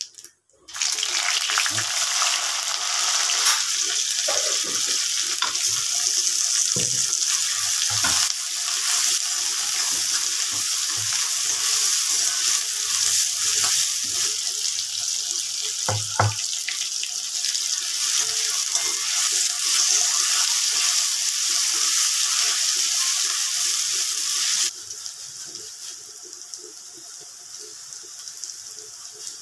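Sliced onions and chillies frying in hot oil in a kadai: a loud, steady sizzle with a few knocks along the way, dropping suddenly to a softer sizzle near the end.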